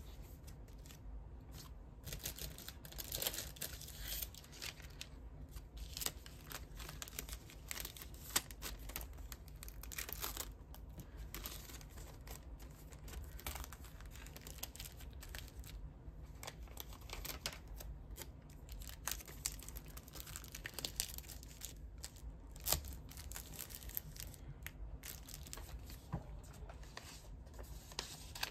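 Paper cards and a clear plastic sleeve rustling and crinkling as they are handled, in irregular bursts, with short tearing sounds of adhesive being peeled and a few light taps.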